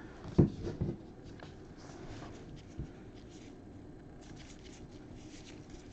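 Trading cards being slid and flipped through by hand: faint scratchy rubbing, with a few soft taps in the first second and one more a little after halfway.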